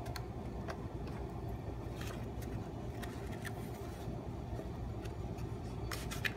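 A few soft taps and paper handling as a rubber stamp is pressed onto an ink pad and a paper booklet page, with a small cluster of taps near the end. A steady low room hum runs underneath.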